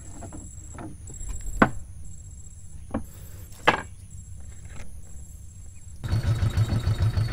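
A few sharp knocks against the wooden skiff's hull, over a low rumble. About six seconds in, the sound cuts to the boat's small 6 hp engine running, a louder steady pulsing beat.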